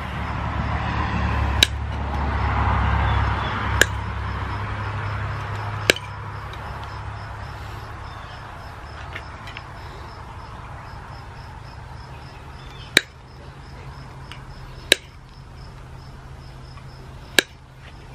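Hand snips cutting through the wires of green-coated steel garden fence: six sharp snips, three in the first six seconds, then a pause and three more near the end.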